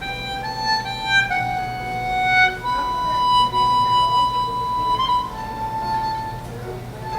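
Instrumental music: a slow melody of held notes on a reedy or bowed-sounding instrument, with one long note held for about two seconds midway through.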